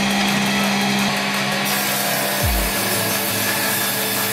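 Electric woodworking machine running steadily with a constant hum. A deep downward sweep comes about two and a half seconds in.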